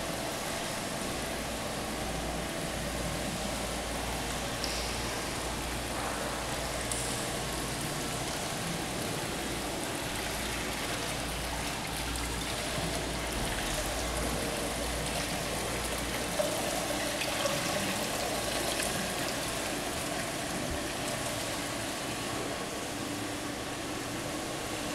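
Hot spring water running and trickling into rock-lined bath pools, a steady wash of water.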